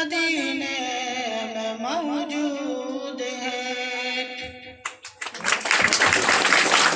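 A singer holds a long, wavering note of an Urdu naat, which fades out after about four seconds. Then a loud rushing noise takes over for the last two seconds.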